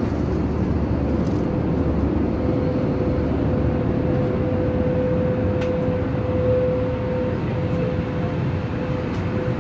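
Steady in-flight cabin noise of an Airbus A320 at cruise: the even rush of airflow and engines, with a steady humming tone running through it.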